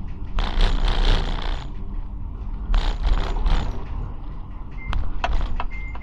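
Prague tram running along the track: a steady low rumble, with two bursts of grinding, scraping rail noise in the first few seconds and a few sharp clicks near the end.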